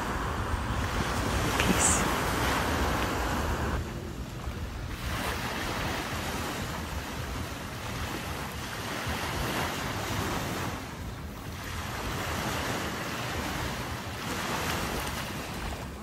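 Small waves washing onto a sandy beach, the surf swelling and easing every few seconds, with wind rumbling on the microphone.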